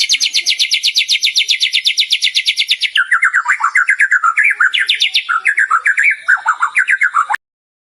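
White-rumped shama (murai batu) singing: a rapid, even trill of high notes, then about three seconds in a switch to lower, varied warbling phrases. The song cuts off suddenly near the end.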